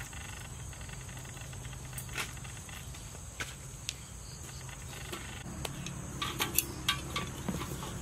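Hands squeezing and mixing instant ramen noodles with minced pork in a metal bowl: scattered soft crackles and clicks, coming more often near the end. A steady high insect drone runs underneath.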